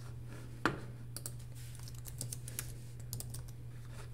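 Typing on a computer keyboard: a run of quick, light key clicks with one louder click about half a second in, over a steady low hum.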